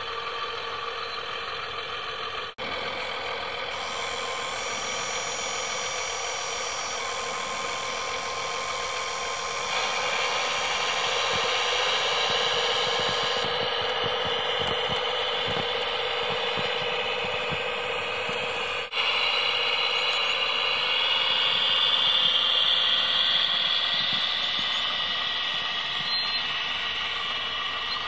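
Radio-controlled scale model machines (an O&K L55 wheel loader and a Schlüter 1250 tractor) running in snow: a steady, thin mechanical engine-like drone with little bass. It grows a little louder about ten seconds in and breaks off abruptly twice.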